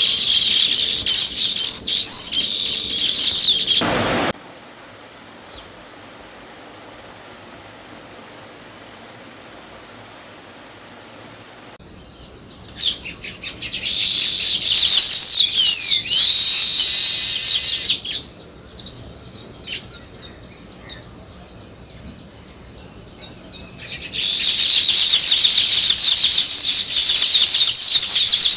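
A flock of small songbirds chirping in a dense, fast chorus. It breaks off abruptly about four seconds in, leaving a faint hiss. It returns for a few seconds a little before halfway, then comes back again for the last few seconds.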